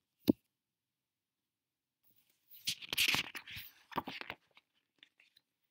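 A single sharp click, then about two seconds of paper rustling and crinkling: a page of a picture book being turned.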